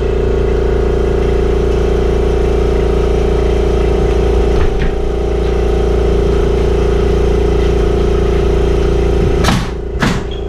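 A motor running with a loud, steady hum. About nine and a half seconds in, a quick run of sharp knocks starts over it.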